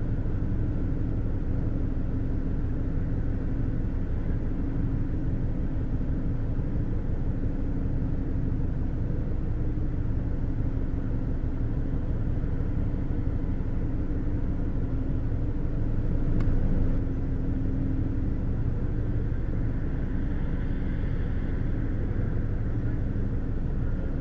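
Steady low engine drone of a ship's diesel machinery, with a steady hum of tones over the rumble; it swells briefly about two-thirds of the way through.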